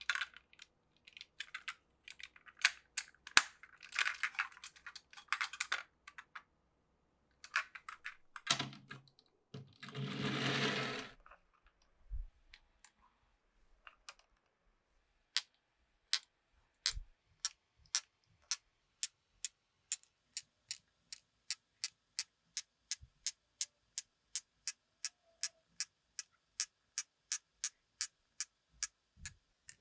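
Marbles running down a wooden marble run: scattered clicks of marbles hitting wooden blocks and rails, with a louder rolling sound about nine to eleven seconds in. In the second half a steady, even ticking of about two clicks a second takes over.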